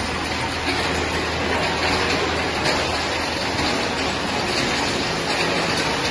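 Steady machinery noise: a continuous rushing hiss with a low hum underneath, unbroken throughout.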